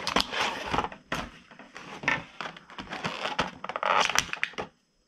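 Action figure packaging of plastic and card being torn open and crumpled: irregular crinkling and crunching that stops abruptly near the end.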